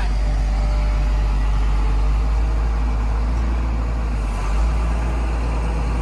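John Deere 690D LC tracked excavator running steadily while it carries a log slung from log tongs.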